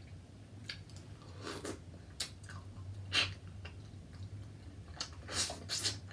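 Close-miked chewing of dipped seafood: a series of short, wet mouth smacks and slurps at irregular intervals, over a faint steady low hum.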